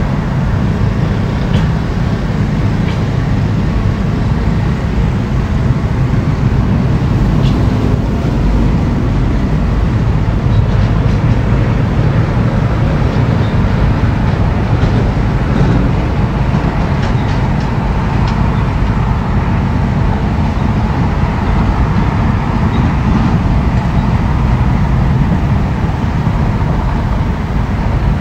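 Diesel engine of heavy earthmoving machinery running steadily, a loud low rumble, with a few faint ticks in the middle.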